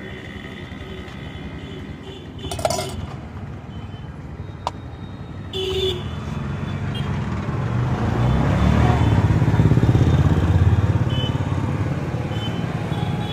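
Street traffic: a motor vehicle's engine grows loud as it passes close, from about eight seconds in, then fades, over a steady background rumble of traffic. A couple of brief clinks come in the first half.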